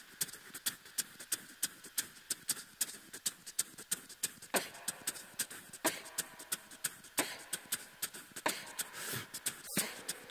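Beatboxer laying down a steady beat: crisp hi-hat ticks about three a second, with a falling bass sweep added about every second and a bit from about four seconds in, as the intro groove of an a cappella song.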